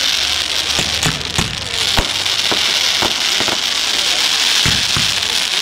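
Fireworks display: a series of sharp bangs from shells bursting, at irregular intervals of roughly half a second to a second, over a steady hiss.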